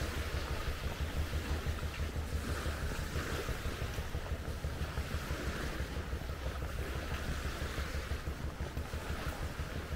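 Wind buffeting the camera's microphone: a steady, fluttering low rumble with an even hiss above it.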